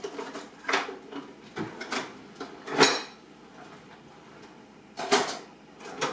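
Kitchen utensils clinking and knocking as a ladle is fetched: a handful of separate sharp knocks, the loudest a little under three seconds in and another pair about five seconds in.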